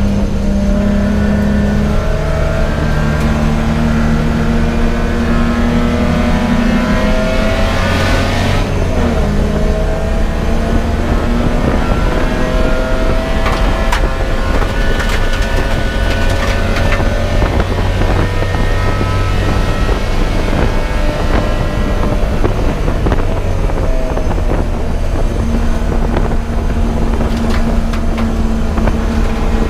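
Race car engine running hard at speed, loud and steady, its pitch climbing and dropping again and again with gear changes and corners. A short rush of hiss comes about eight seconds in.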